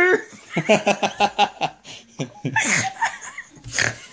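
Teenagers laughing and giggling in quick, repeated bursts, just after the tail of a loud growled "Arr!" trails off at the start.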